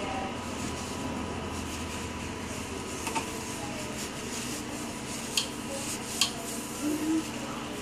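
Steady background hum with a few light clicks and taps from a microscope being handled as its lenses are wiped, three of them sharp, about 3, 5.5 and 6 seconds in.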